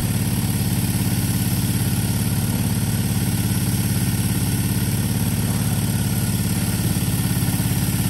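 A small engine idling steadily with an even pulse, no change in speed.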